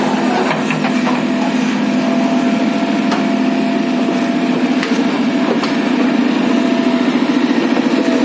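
An engine running steadily, with a few light knocks over it.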